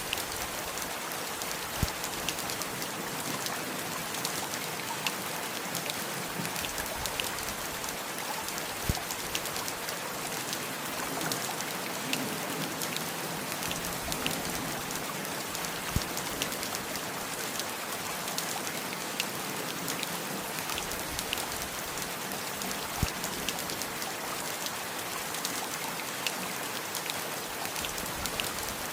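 Steady rain, an even hiss with loud single drops striking now and then.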